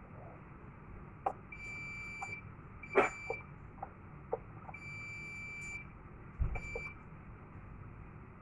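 Fire alarm control panel buzzer sounding a high steady tone in four uneven beeps, two about a second long and two brief. Sharp clicks come about a second in and at the third second, and a low thump comes just before the last beep.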